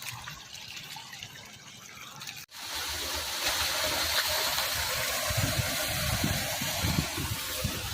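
Rushing water from flooding rain, a quieter stretch that cuts abruptly about two and a half seconds in to much louder, steady rushing with uneven low rumbles.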